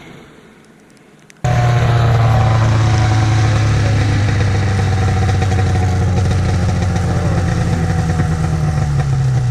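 1995 Arctic Cat ZR 580 snowmobile's two-stroke twin engine: faint and fading at first, then suddenly loud and close about a second and a half in, running steadily at an even speed with a slight drop in pitch near the end.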